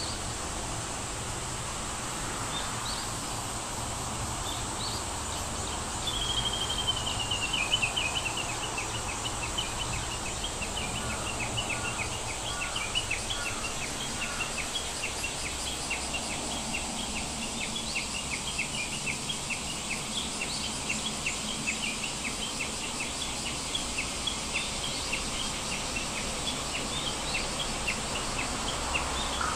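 Small birds chirping over a steady high hiss: a descending trill about six seconds in, then a long run of short, quick chirps repeated over and over.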